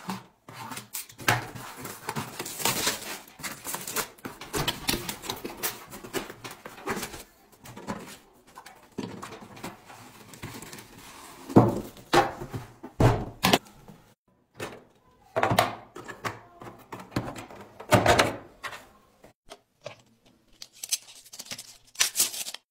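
Handling sounds of a tool kit being unboxed: cardboard scraping and rustling, then a plastic tool case lifted out of its box with several sharp knocks and clacks. Near the end there is a high sliding hiss as a tape measure blade is pulled out.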